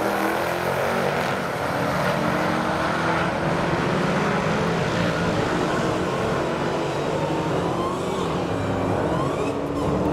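Modern Hemi V8 car engine running at a steady pitch, with faint rising whines near the end.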